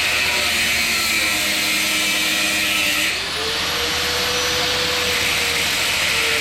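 Electric power tool running under load. Its motor tone climbs and holds higher about three seconds in, as the load eases, and dips briefly again near the end.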